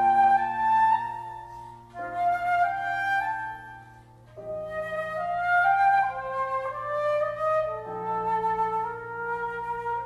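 Concert flute playing a flowing melody in rising stepwise phrases, with a short break in the line about four seconds in.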